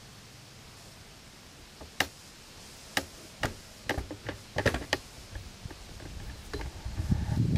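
Handling noise from a hand-held compact camera: a handful of sharp clicks and taps from about two seconds in, roughly one every half second to a second, then a low rumble that grows louder over the last second or so.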